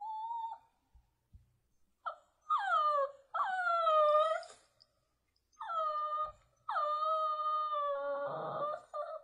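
A dog whining and howling in a string of high, drawn-out cries, several sliding down in pitch. The last cry is long and held and turns rough and noisy near the end.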